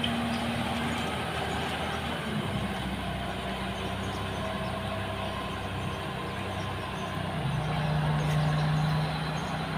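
Heavy diesel truck engine running steadily. About three-quarters of the way through, its hum drops in pitch and grows louder, then eases off near the end.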